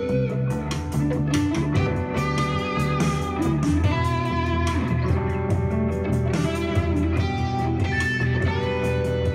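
Overdriven electric guitar playing single-note lead lines with bends, a PRS Custom 24 SE through a Fender Bassbreaker 15 amp with a Boss Blues Driver pedal and delay. It plays over a power-ballad backing track in E minor with bass and drums.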